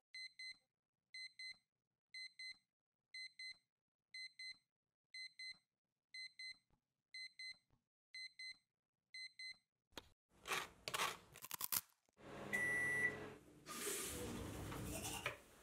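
Electronic alarm clock beeping in quick double beeps about once a second, stopping after about nine seconds. Then come louder bursts of rustling, and near the end a bathroom basin tap runs with a steady rush of water.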